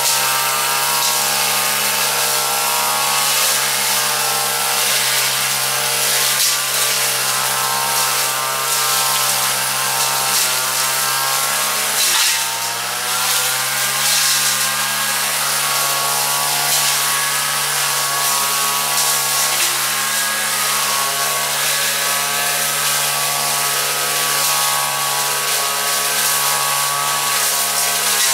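Japanese petrol brush cutter running at high speed as it cuts through weeds. The engine pitch dips briefly about twelve seconds in, then climbs back to a steady whine.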